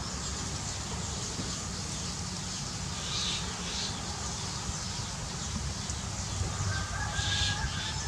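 Eurasian tree sparrows chirping briefly a few times over a steady low rumble, with a longer held bird call starting near the end.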